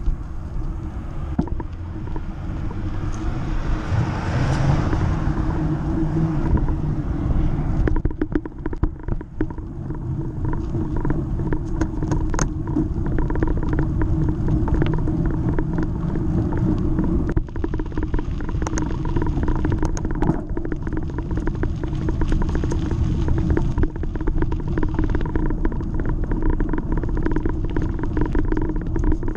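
Wind buffeting the microphone of a handlebar-mounted GoPro HERO Session on a moving bicycle: a steady low rumble with tyre noise. From about eight seconds in, frequent short clicks and rattles from the bike break through.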